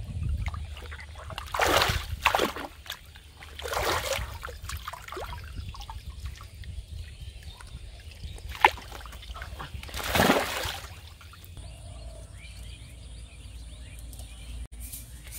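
Water splashing and sloshing as a cast net holding large fish is lifted out of a muddy pond, with water trickling off the net. A handful of separate splashes, the loudest about ten seconds in, and one sharp slap a little before it.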